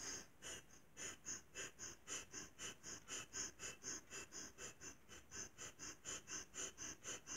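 Breath of fire: rapid, even, forceful breaths through the nose, about three to four short puffs a second. The exhales are driven by pulling the navel in, and each inhale is a passive release.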